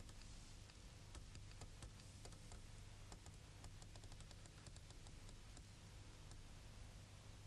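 Near silence: a low steady hum with many faint, irregular clicks scattered through it, thinning out near the end.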